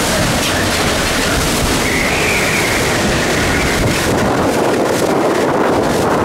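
Hurricane-force wind blowing hard against the microphone, a steady rushing noise with a high whistle that wavers up and down, and stronger gusts later on.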